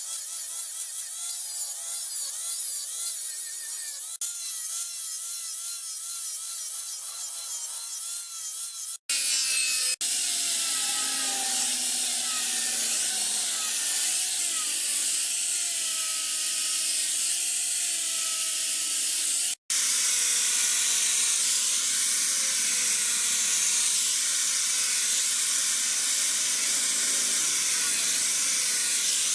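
Steel sword blade being polished against an abrasive: a steady rasping hiss with a faint wavering whine, broken off sharply twice where the sound is spliced.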